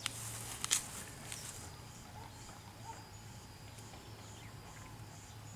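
Quiet outdoor background with a steady low hum. Less than a second in comes a brief rustle and one sharp knock; after that there are only a few faint ticks.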